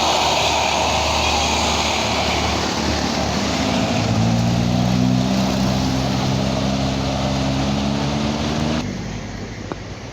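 Tour bus diesel engine climbing a steep hill: a loud rush of engine and road noise, then from about four seconds in a steady low engine drone that creeps slightly up in pitch. The sound drops away abruptly near the end.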